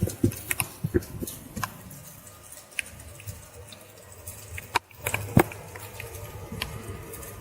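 Irregular drips and light taps of water, with a sharper knock about five seconds in and a louder one half a second later.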